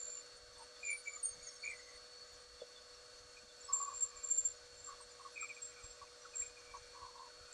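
Sandpaper rubbing along a steel lathe pen mandrel, making short scattered squeaks, most of them about four seconds in, over a steady faint hum.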